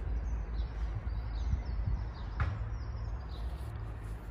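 Birds chirping, a scatter of short high calls, over a steady low rumble.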